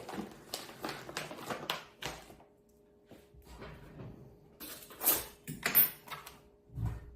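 Kitchen utensils and containers being handled on a counter: a run of light knocks and clinks, a short quiet spell, then two louder knocks and a low thump near the end.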